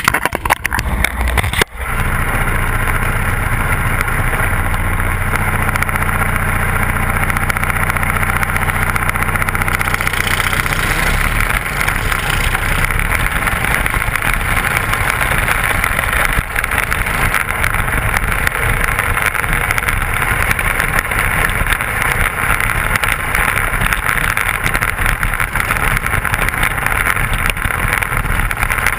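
Intermediate sprint car's engine, heard from the cockpit. After a knock about two seconds in it runs at a steady low speed, then from about ten seconds in it runs harder and rougher as the car moves out on the dirt track.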